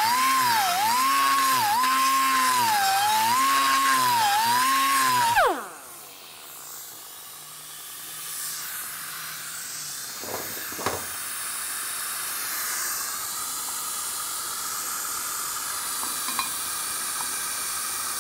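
Die grinder cutting in the exhaust port of a cast-iron Pontiac 6X cylinder head: a high whine whose pitch repeatedly sags as the cutter bites into the metal and recovers as it eases off. About five seconds in the trigger is released and the whine drops away sharply as the tool spins down, leaving a faint hiss with a few light clicks.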